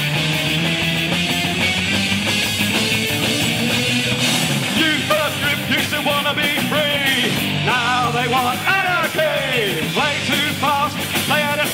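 Punk rock band playing an instrumental break: electric guitars, bass and drums driving on, with a wavering, bending lead line coming in over the top about five seconds in.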